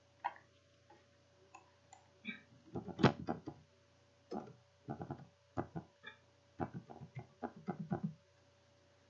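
Computer keyboard typing: short, irregular runs of key clicks, the busiest stretch in the second half, over a faint steady hum.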